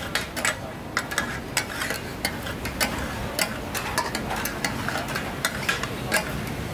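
Two metal spatulas clattering against a large flat iron griddle (tawa) as minced offal is chopped and turned for taka tak, about three sharp clanks a second in an uneven rhythm, over a steady sizzle of food frying in oil.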